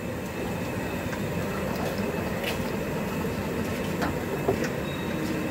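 Steady background rumble of street traffic, with a few faint clicks.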